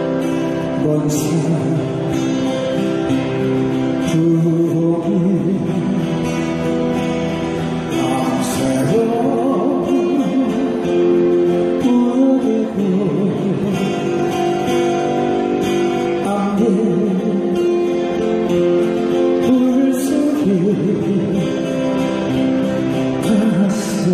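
A man singing a slow Korean ballad over acoustic guitar, the voice holding long notes with vibrato.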